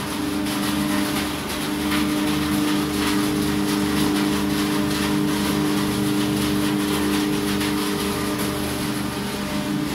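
Corrugated cardboard production line running: a steady machine hum with a couple of steady droning tones, an even low pulsing underneath and a light rattle and hiss on top.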